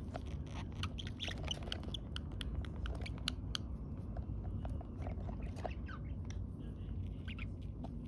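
Pet budgerigars nibbling and pecking: a quick, irregular scatter of small clicks and taps, with a few short chirps.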